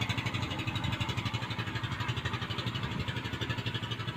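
Robin NBT415 brush cutter's 72 cc twin-cylinder two-stroke engine idling steadily, with an even, fast pulsing beat.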